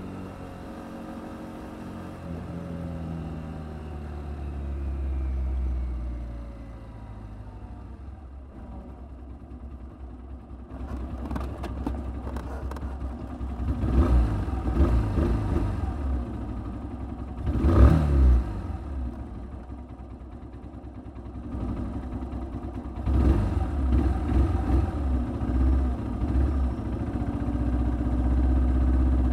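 Kymco Quannon 125 single-cylinder motorcycle engine dropping in pitch as the bike slows to a stop, then idling steadily. Several loud rushes of noise pass over the idle partway through and again later.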